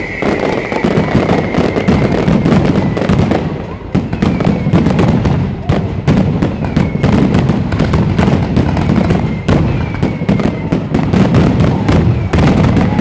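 Aerial fireworks finale barrage: many shells bursting in rapid succession, a dense run of bangs over continuous crackling, with faint high whistles under it.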